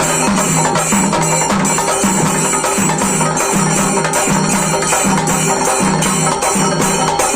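Devotional music with a steady percussion beat over a repeating low melodic line.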